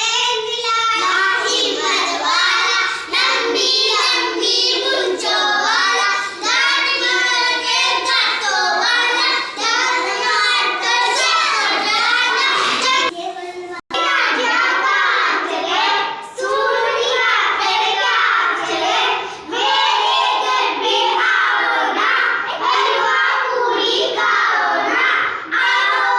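Children singing continuously, their voices cutting out for an instant about 14 seconds in.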